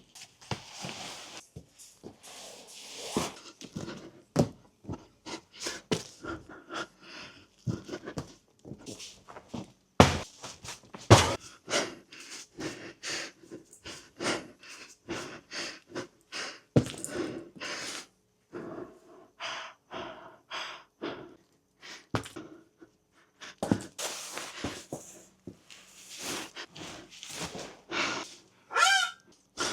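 A man breathing hard in quick, irregular huffs and pants, with a few sharp knocks, the loudest about ten and eleven seconds in.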